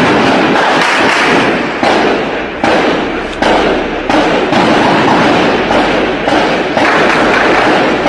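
Gunfire in repeated bursts, loud and distorted on a phone's microphone, each burst starting abruptly every second or so.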